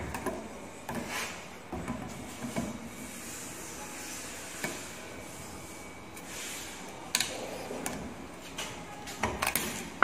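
Scattered clicks, knocks and rubbing of parts and tools being handled on a workbench over steady background noise, with the sharpest clicks about seven seconds in and a quick cluster of them near the end.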